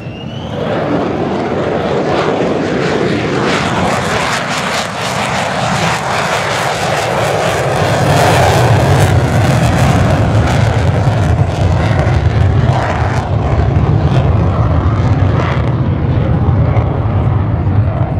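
Lockheed Martin F-35A's single Pratt & Whitney F135 afterburning turbofan, loud as the jet passes low, then lit in afterburner for the climb away. A deep rumble builds from about eight seconds in and holds.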